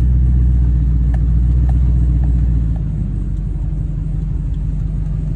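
Pickup truck's engine and drivetrain rumbling low and steady, heard from inside the cab while driving slowly; the rumble drops a little in level about halfway through. A few faint ticks, about two a second, sound in the first half.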